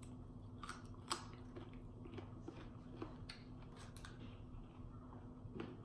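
Faint close-up chewing and wet mouth clicks of a person eating, over a steady low hum.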